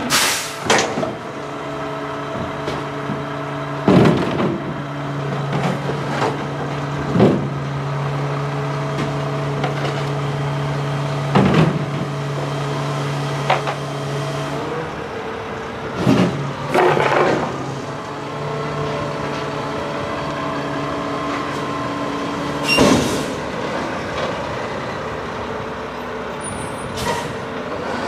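Mack LR garbage truck engine idling steadily, with loud clattering bangs every few seconds as plastic tubs and loose recyclables are dumped and knocked against the metal front carry can. The engine note drops about halfway through, and there is a short hiss of air near the end as the truck moves off.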